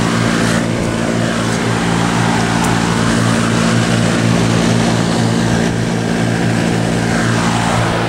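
A 3-ton Trane packaged heat pump from 2000 running in heating mode: a steady hum from its Climatuff reciprocating compressor under the even rush of air from its three-bladed fan.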